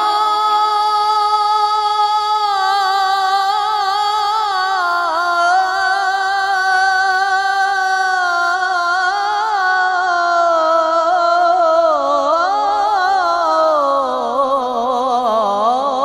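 Unaccompanied male voice singing an Islamic ibtihal, drawing one long melismatic vowel out without a break and ornamenting it with small wavering turns. About twelve seconds in, the line slides down in pitch into quicker trills.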